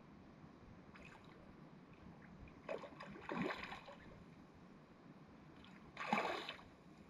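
A hooked Australian bass thrashing at the water's surface on a fishing line. There is a run of splashes about three seconds in and a sharper splash about six seconds in.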